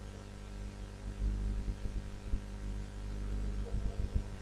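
Steady low electrical mains hum, with a few faint low knocks.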